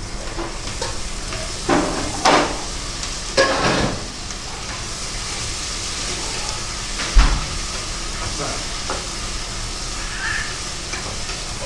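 Onions frying in oil in a pressure cooker, with a steady sizzle. Louder bursts of sizzling and stirring come about two to four seconds in, and there is a single thump about seven seconds in.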